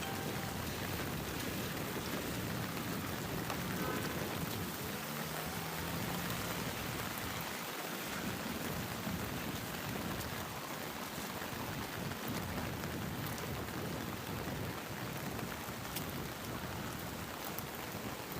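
Steady rain falling and pattering on surfaces, an even hiss with no break.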